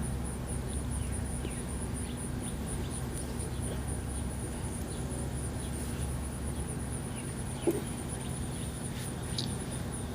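An insect chirping in a high, fast, even pulse over a steady low hum, with faint short chirps scattered through. One brief sharp sound stands out about three-quarters of the way in.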